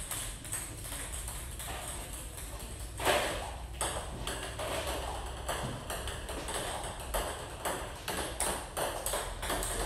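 Table tennis ball clicking back and forth between paddles and the table in a practice rally, a steady run of quick sharp ticks, with a louder noise about three seconds in.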